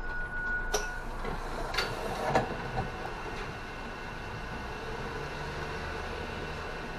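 City bus front door closing: a short steady electronic tone for about a second, then a few knocks as the door shuts, followed by the bus's engine running with a low hum that firms up from about halfway through.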